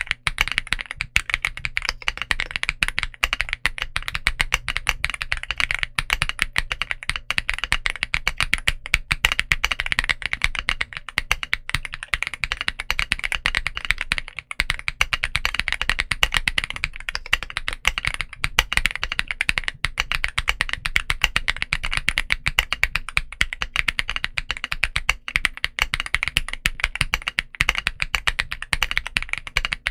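Continuous fast typing on a stock Womier RD75 aluminum mechanical keyboard with full-POM linear switches and double-shot PBT Cherry-profile keycaps, many keystrokes a second without a pause.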